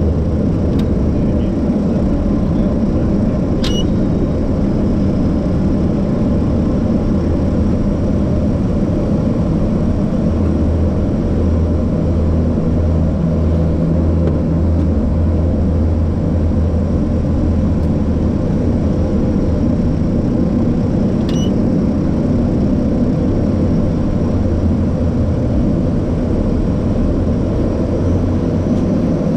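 LET L-410 twin turboprop engines and propellers running at taxi power, heard from inside the cockpit as a steady low drone that pulses for a few seconds midway. Two faint clicks stand out, one early and one past the middle.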